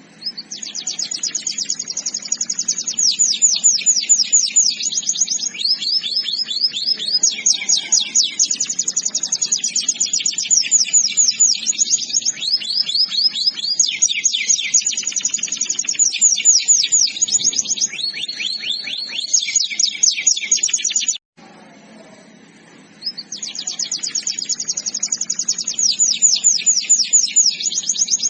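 Canary singing: long rolling trills of rapidly repeated high notes, phrase after phrase, each phrase changing speed and pitch. The song cuts off abruptly about 21 seconds in and starts again about two seconds later.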